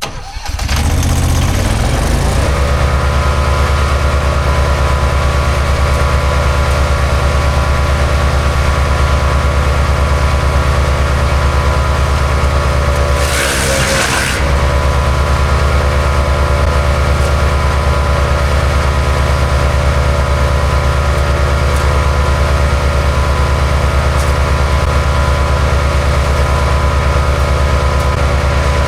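MechMaxx B200 wood chipper's gasoline engine running steadily at speed after coming up over the first two seconds. About halfway through, a short burst of shredding noise comes with a brief dip in the engine's pitch as a branch is fed through and chipped.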